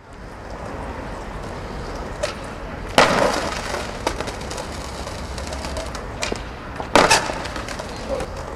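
Skateboard wheels rolling on paving, then two hard slams about four seconds apart as the board and the skater's body hit the ground, with smaller clacks of the board in between.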